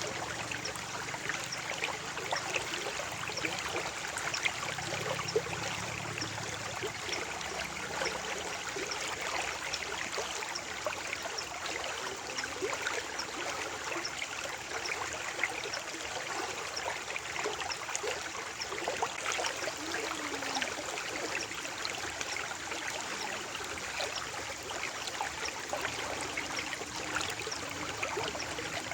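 Shallow stream water flowing and trickling steadily, with many small splashes and droplets.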